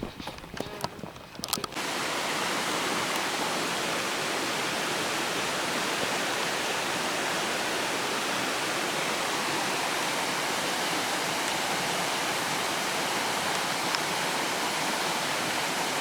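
Steady rush of flowing water, like a waterfall or fast stream, starting suddenly about two seconds in after a few soft clicks.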